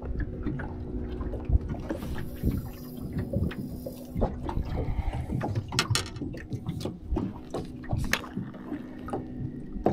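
Small waves lapping and slapping against an aluminium boat's hull, with scattered knocks and handling clicks over a low steady hum.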